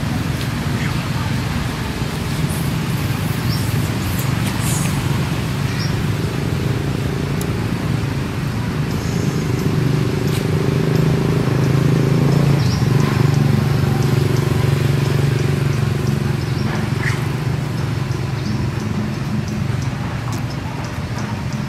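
A steady low motor hum, swelling slightly toward the middle and easing off near the end, with a few faint high clicks over it.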